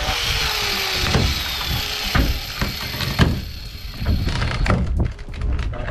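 A power tool spinning down as it is switched off, then irregular knocks and thuds of rotten boat-transom wood being broken out by hand.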